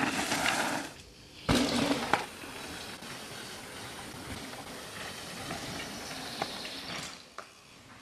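Mountain bike tyres rolling and skidding over loose, dusty forest dirt as the rider passes close by, with a sharp knock about one and a half seconds in. After that, a steadier rolling hiss with a few small clicks.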